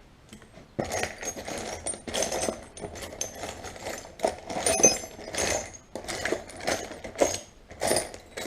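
Loose bolts and small metal hardware clinking and rattling as they are rummaged through by hand, a run of irregular clatters starting about a second in.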